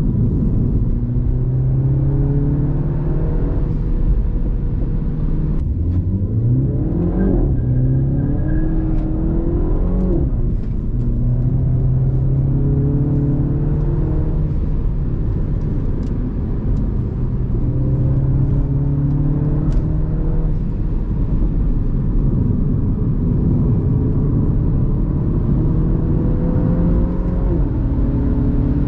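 Mini Cooper F56's turbocharged 2.0-litre four-cylinder engine driven through corners: revs climb and drop several times, with steadier stretches between, over tyre and road noise.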